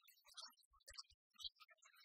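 Faint, irregular crinkling of a packaged blind-bag packet as it is turned over in the hands, with a few soft low bumps.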